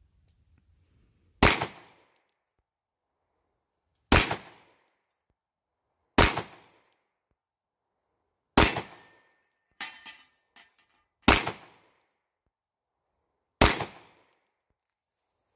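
Sarsilmaz B6 9mm pistol fired six single shots in slow, deliberate fire, each a sharp crack with a short outdoor echo, about two to three seconds apart. About a second after the fourth shot come two fainter metallic clinks.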